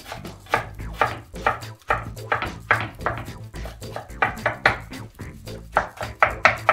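Kitchen knife chopping roasted eggplant on a wooden cutting board: repeated knocks of the blade on the board, about three a second, quickening near the end.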